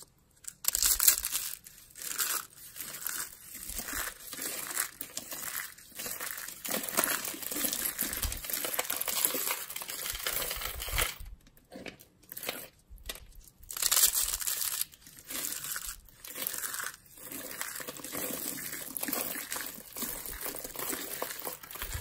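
Dry soap curls being crushed and crumbled by hand, breaking into flakes with a crisp crackling and crunching. It starts about a second in and comes in runs with short pauses.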